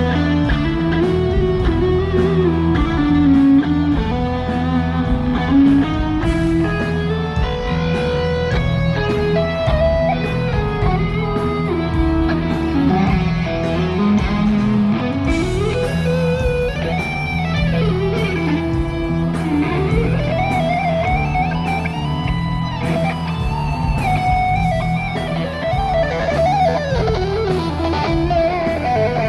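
Live band playing, led by an electric guitar solo whose melody slides and bends up and down, over bass notes and drums.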